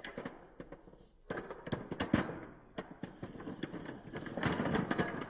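Colourful sticks of chalk being crushed and crumbled in slow motion: a dense run of crunching crackles, with a short pause about a second in and the thickest crunching near the end.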